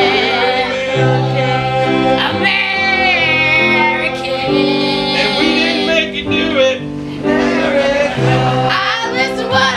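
Improvised song performed live: a woman singing with a strong vibrato on long held notes, with men's voices joining, over instrumental accompaniment playing steady chords.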